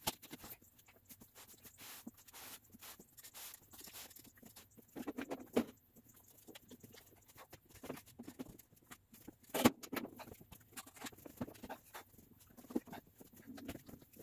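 Faint handling noise as a large touch-screen display is lifted and moved: scattered clicks, light bumps and rustling, with one sharp knock about nine and a half seconds in.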